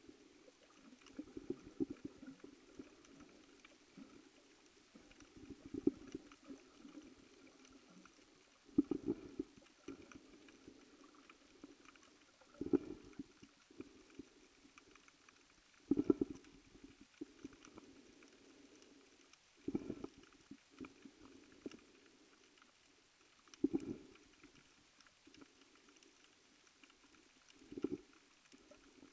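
Scuba diver's exhaled breath bubbling out of the regulator underwater, a low gurgling burst about every four seconds, eight times, with quiet water noise between the breaths.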